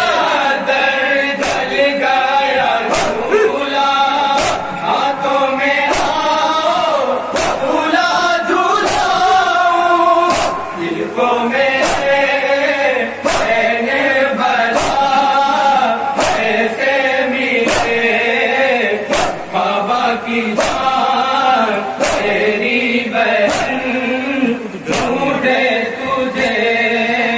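Group of men chanting an Urdu nauha (mourning lament) in unison over a crowd's rhythmic chest-beating matam, sharp slaps landing in time a little more than once a second.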